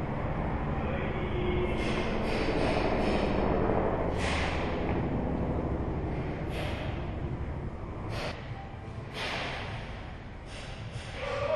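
A person breathing hard, with about seven short sharp snaps or clicks scattered through it.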